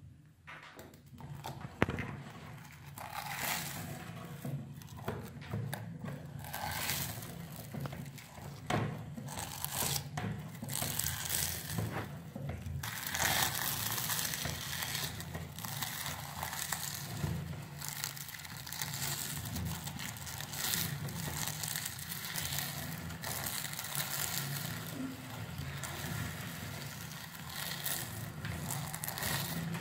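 Hand-cranked metal meat grinder crushing dry wafer pieces: a continuous, irregular crackling crunch as the crank turns, with a sharp knock about two seconds in.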